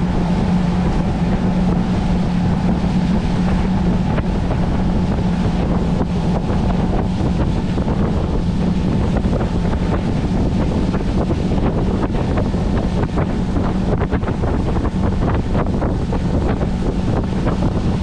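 Small fishing boat's engine running steadily with a constant low hum, under heavy wind noise on the microphone.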